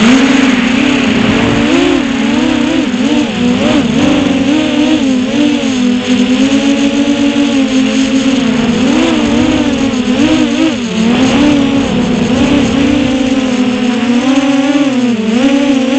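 Motors and propellers of a 6-inch FPV quadcopter (2407 1850KV motors on 6S) whining loudly, as heard from its onboard camera. The pitch rises and falls continuously as the throttle is worked through freestyle moves.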